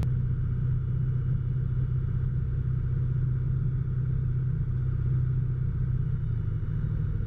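Rotax 912 four-cylinder aircraft engine and propeller of a TL-3000 Sirius running steadily at taxi power, heard from inside the cabin as a constant low drone.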